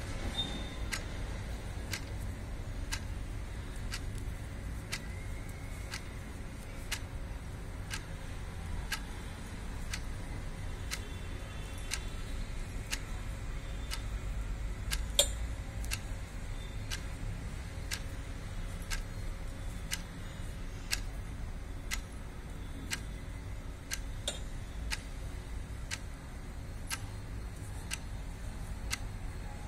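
A clock ticking steadily, about once a second, over a low hum, with one louder click about halfway through.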